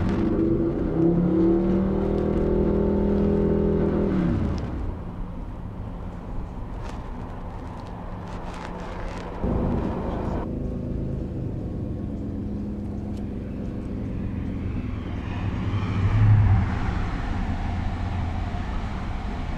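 A Class 66 diesel-electric locomotive's engine drones as it passes hauling a container freight train, its engine note dropping in pitch about four seconds in as it goes by. Later, an LNER Azuma passenger train passes close with a rising rushing noise of wheels on rails.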